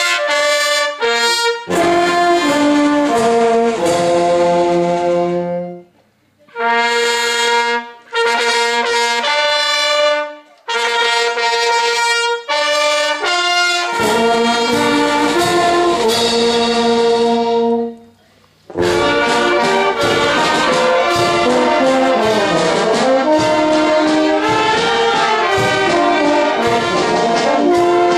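Brass band of trumpets, trombone, horn and tuba playing held chords in short phrases, with brief breaks between them. About nineteen seconds in, a fuller, busier passage starts, with drum strokes under the brass.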